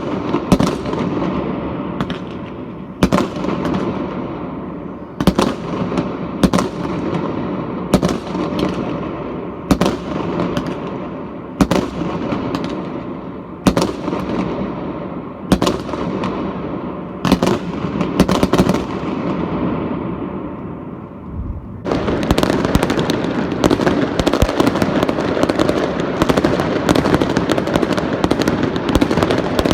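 Fireworks going off: loud single bangs of bursting shells every second or two over a continuous crackle and rumble, then about 22 seconds in a dense barrage of rapid crackling pops takes over.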